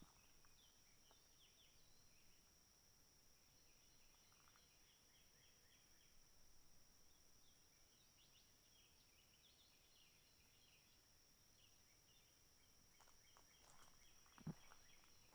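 Faint outdoor ambience: a steady high-pitched drone with repeated faint chirping. A few footsteps come in near the end.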